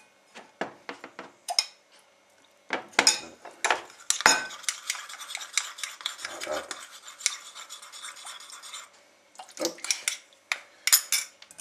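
Metal teaspoons clinking and scraping against porcelain bowls as cornstarch is stirred into a soy-based sauce. There are scattered single clinks, with a spell of quick, steady stirring in the middle.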